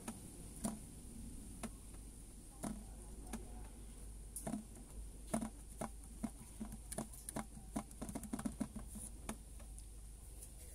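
Scattered light clicks and taps of a trap flap pivoting on a wire across the mouth of a plastic bucket, pressed down and tipped back by hand to test the seesaw lid of a rat trap. The taps come in a quicker run about seven to nine seconds in.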